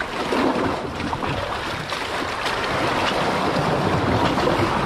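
Sea surf washing against shore rocks: a steady rushing noise, with wind on the microphone.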